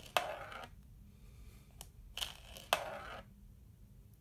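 A marble rolling around the rim of a plastic yogurt-container lid and out onto the board, twice. Each roll starts with a click and runs on as a short rolling noise of about half a second to a second.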